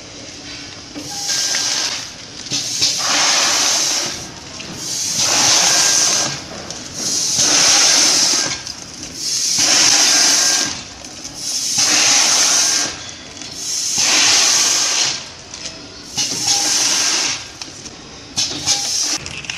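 Vertical form-fill-seal packing machine bagging roasted peanuts, a rushing hiss about every two seconds as each bag is filled and sealed, over a steady low machine hum.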